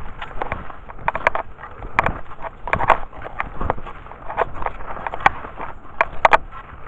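Cross-country skis sliding and poles planting in soft spring snow: a rhythmic crunching and swishing with sharp clicks every half second or so.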